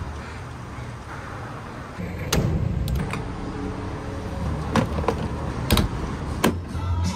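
Sharp clunks and clicks of a gas-pump nozzle being pulled from a pickup's filler neck and handled, then the fuel cap being screwed shut. A steady low traffic rumble runs underneath.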